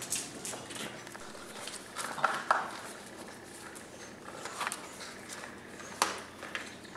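English bulldog puppies' claws and paws tapping and scuffling on a tile floor as they play, in scattered irregular clicks. Two louder short sounds come about two seconds in, and another sharp one near the end.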